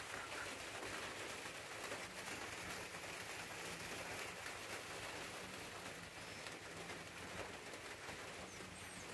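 Light rain falling on river water, a faint, even hiss, with a few high bird chirps near the end.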